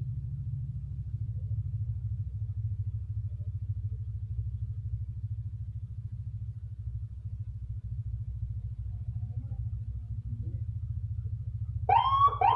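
A steady low rumble runs throughout. Near the end, a custom Landun patwal (police-escort) siren fitted to a motorcycle gives two short rising whoops. They are the loudest sound.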